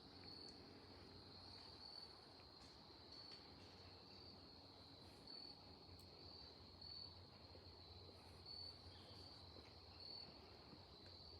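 Faint insects chirring: one steady high trill that swells slightly at regular intervals.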